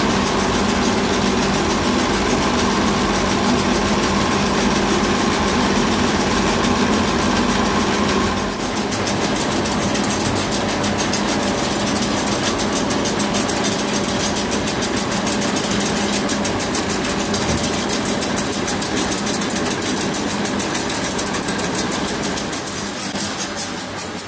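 Plastic-rope making machinery running: a steady machine hum, then from about eight seconds in a fast, even mechanical ticking clatter from the twisting and winding machine.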